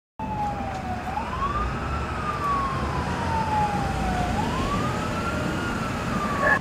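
Emergency vehicle siren on a slow wail, cutting in suddenly: two sweeps, each a quick rise and a long slow fall about three seconds apart, over a low rumble.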